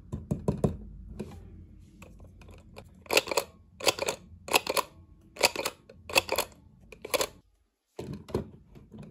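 Plastic Marvel Mighty Muggs Iron Man figure being worked by hand: a few light plastic clicks as it is picked up, then six short clattering clicks about three-quarters of a second apart as its head is pressed down to change the face.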